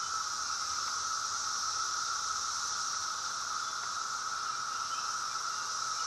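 Chorus of periodical 17-year cicadas (Brood X), many males calling at once to attract mates. It is a steady, unbroken drone at two pitches, one middle and one high.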